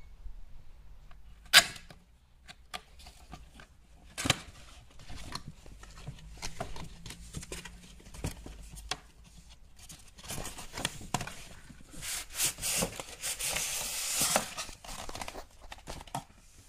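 A cardboard model-car box being opened by hand. Scattered clicks and taps come from the box and packaging, with one sharp snap about one and a half seconds in. Near the end comes a dense stretch of rustling and scraping as the cardboard flaps and insert are worked open.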